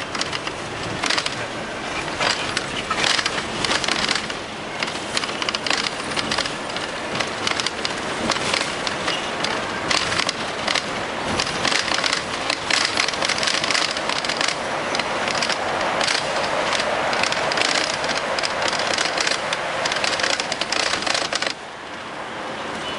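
Bus cabin noise: a steady rush with constant crackling and rattling clicks, which drops suddenly near the end.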